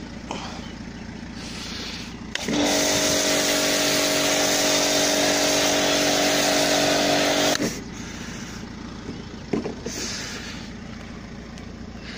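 Pressure washer firing a snow foam lance at a car for about five seconds: the pump motor's steady hum under the hiss of the foam spray. It starts suddenly a couple of seconds in and cuts off just as suddenly.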